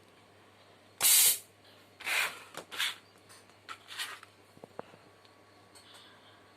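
Short blasts of compressed air hissing out of a homemade desoldering air gun, fed from a small tank with the compressor off. The first blast about a second in is the loudest; the following ones, around two to four seconds in, grow weaker as the tank pressure drops, and a couple of faint clicks come near the end.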